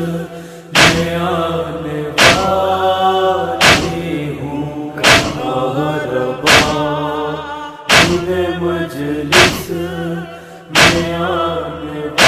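Voices chanting a Muharram noha (lament), with a sharp beat striking about every second and a half to keep time over a steady low drone.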